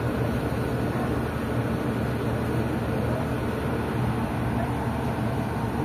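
An engine running steadily in a low, even rumble that does not rise or fall.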